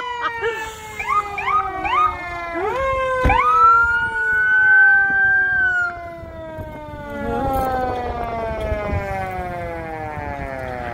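Fire truck sirens as the truck approaches: an electronic siren in a fast yelp changes to a single rising wail about three seconds in and cuts off near six seconds, while a second siren tone falls slowly in pitch throughout.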